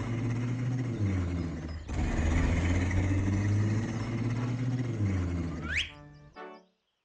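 Cartoon background music with a strong low bass line. Near the end it gives way to a quick rising swoosh and a short ringing sound that fades out.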